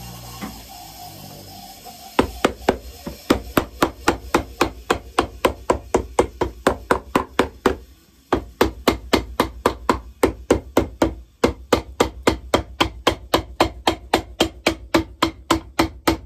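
Cobbler's hammer striking a shoe's leather sole on a last, about four even blows a second. The blows start about two seconds in and pause briefly twice.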